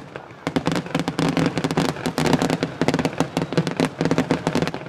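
Fireworks crackling: a fast, dense run of sharp pops, many a second, that starts just after the beginning and keeps going.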